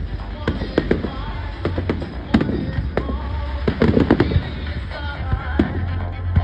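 Aerial display fireworks going off in a rapid, uneven series of bangs and crackles, with the display's music soundtrack playing underneath.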